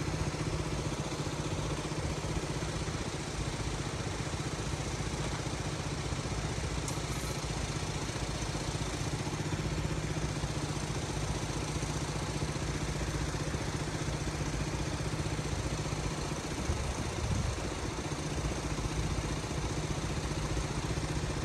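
Steady low engine drone, like an engine idling, holding level with no build-up, over a rushing haze.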